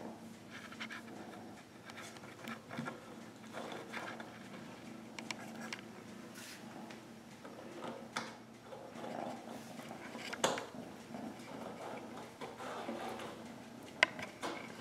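Kitten purring steadily while being stroked, with scattered scratching and handling noises and a few sharp clicks, the loudest about ten seconds in and another near the end.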